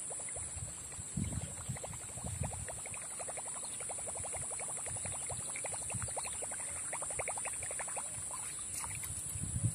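Small spinning reel being cranked to retrieve a frog lure, its gears giving a fast, even ticking in runs, with a few low thumps about a second in and near the end.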